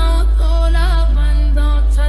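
A Chhattisgarhi devotional song playing loud through a DJ sound system on a sound check: a wavering sung melody over a heavy, constant deep bass.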